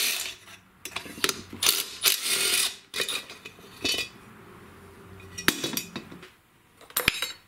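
Cordless impact driver with a T27 Torx bit running in short bursts as it backs out the muffler bolts of a Stihl MS291 chainsaw, the longest burst about two seconds in. A few sharp metal clinks follow near the end as the muffler comes away.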